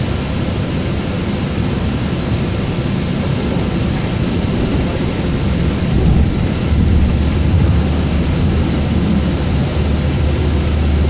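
Steady rumble and rushing noise of a moving train, heard from inside the car. A low, steady hum sets in a little past halfway and holds.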